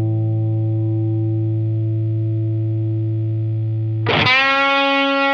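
Telecaster-style electric guitar played through an LPD CLE-304 optical compressor/EQ pedal: a low note held with long, even sustain, then a higher note picked about four seconds in and left ringing.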